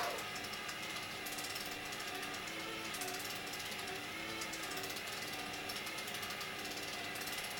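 Destination roll sign from a JR Central 211 series train scrolling its film between destinations: a steady mechanical whir with a wavering hum and a fast, fine ticking.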